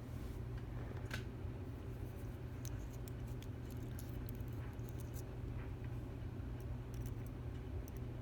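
Faint scattered small metal clicks and ticks of tweezers picking out the pins and springs of a disassembled padlock, over a steady low hum.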